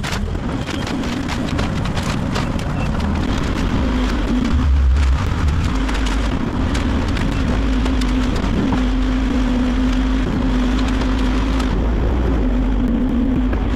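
SANY SY155U excavator's diesel engine running steadily close by, a low rumble with a held hum, overlaid by scattered cracks and clicks of wood debris being handled.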